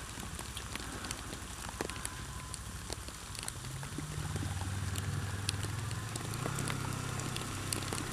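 Heavy rain striking close to the microphone in a dense patter of sharp drop clicks, over the low, steady running of the Kawasaki ER-6f's parallel-twin engine, which comes up a little about halfway through.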